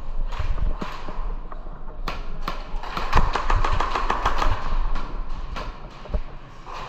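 Airsoft guns firing during a game: scattered sharp shots and knocks, then a rapid full-auto burst about two seconds in that runs for a couple of seconds, over a steady background hum.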